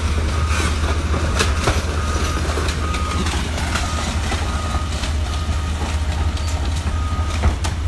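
Heavy demolition machinery running with a steady low engine rumble, its short warning beep repeating about every three-quarters of a second, while a house is torn down with scattered sharp cracks and knocks of breaking material.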